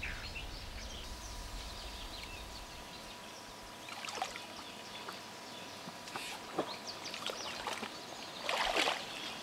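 Faint water sloshing and splashing as a Galapagos giant tortoise wades through a shallow muddy pond, with a louder splash about a second before the end.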